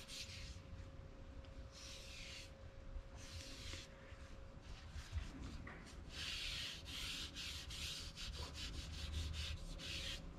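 A gloved hand wiping wood stain onto a new hickory hammer handle, making soft swishing rubbing strokes: a few separate wipes, then a run of quick back-and-forth strokes near the end.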